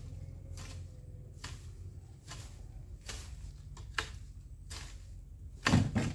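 Long-handled garden hoe chopping into soil and weeds, a little more than one stroke a second, with a heavier thud near the end.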